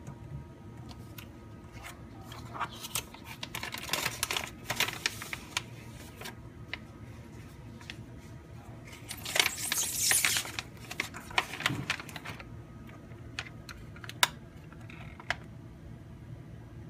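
A clear plastic vacuum bag rustling and crinkling as it is handled, with scattered clicks and taps of small plastic pieces set down on a table, over a steady low hum. The longest and loudest stretch of crinkling comes about nine to ten seconds in.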